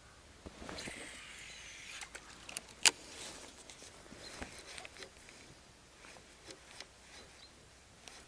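Baitcasting reel whirring for about a second, then scattered clicks and knocks from handling the rod and reel, with one sharp click about three seconds in. This fits an angler fighting a hooked pike.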